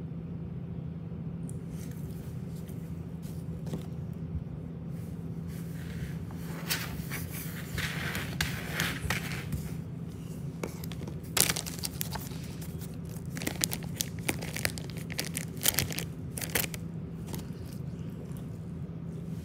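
Rustling and scraping as a Bernese mountain dog squirms and rolls on a wooden floor close to the microphone, its fur and paws brushing and scratching, with a few sharp clicks in the middle stretch. A steady low hum runs underneath.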